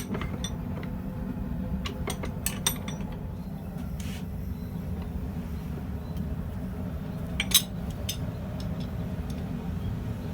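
Scattered light metal clinks and taps as a steel rod is handled and worked with hand tools, over a steady low hum; the sharpest clink comes about seven and a half seconds in.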